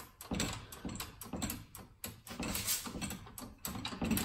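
Mechanical clunks and rattles in several short irregular bouts, from a floor jack being set up and worked to lift the car.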